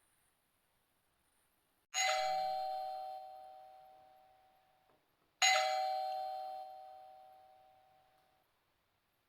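Doorbell chime rung twice, about three and a half seconds apart. Each ring is a single struck tone that starts sharply and dies away over about three seconds.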